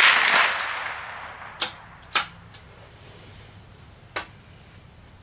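A 5.56×45mm shot from a DPMS Oracle AR-15 rings out and echoes away over about a second and a half. Then come more sharp gunshot cracks: two close together about two seconds in, a small one just after, and another about four seconds in.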